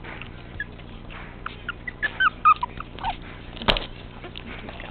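Teacup Chihuahua puppy giving a string of short, high yips and whimpers, loudest about two and a half seconds in, followed by a single sharp knock.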